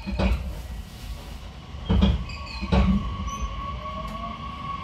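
Inside a JR Kyushu 813 series electric train's motor car pulling away: three heavy thumps of the wheels over the track in the first three seconds, then the traction motors' whine sets in and rises as it accelerates.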